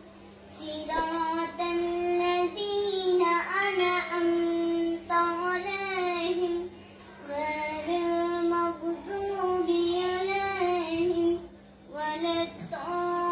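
A young girl chanting Quranic recitation in a melodic style: long phrases of held notes with ornamented bends, broken by short pauses for breath.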